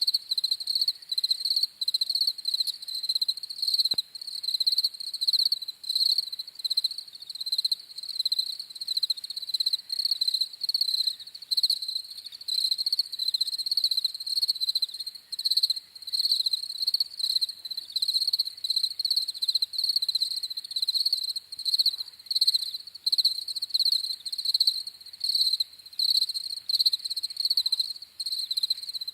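Crickets chirping: a high-pitched, rapidly pulsing chirp that repeats without pause.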